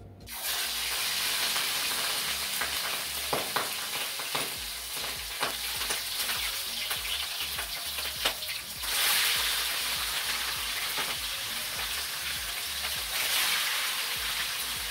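Pieces of skin-on mutton snapper frying in very hot oil in a skillet: a steady sizzle with scattered crackling pops, swelling louder about nine seconds in.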